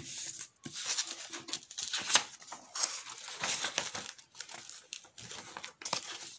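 A sheet of A4 paper being handled and folded into a paper airplane, crinkling and rustling in short, irregular bursts.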